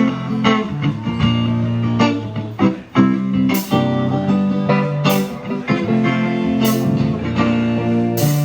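Guitar playing a blues-style instrumental passage, with a sharp hit about every second and a half in the second half.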